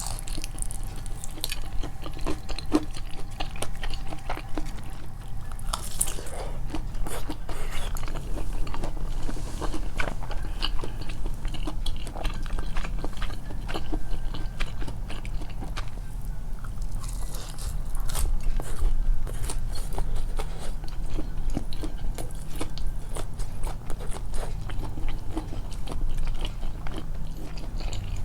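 Close-miked biting and chewing of homemade fried chicken (karaage), with irregular crunches of a lightly crisp coating among wet chewing sounds, over a low steady hum.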